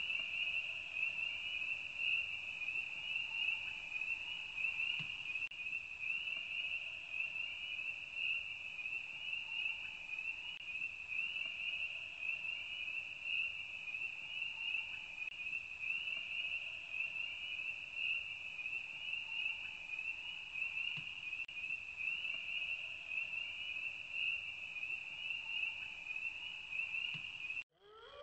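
Crickets chirping in one continuous, finely pulsing high trill that cuts off suddenly near the end.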